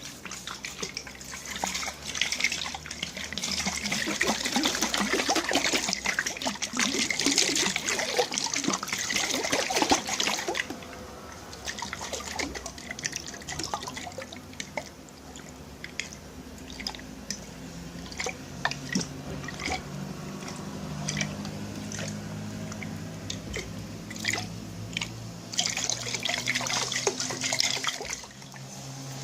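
Liquid being poured and sloshed in a container, loud for about the first ten seconds, then dropping to quieter drips and trickling.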